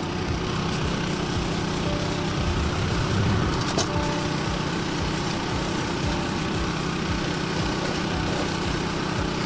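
A small motor running steadily, with faint light clicks over it.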